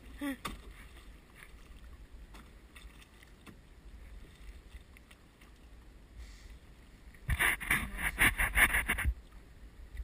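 Small rowing boat worked Venetian-style with one long oar: quiet water and oar sounds, then about seven seconds in a loud, rapid run of knocks and rattles lasting nearly two seconds.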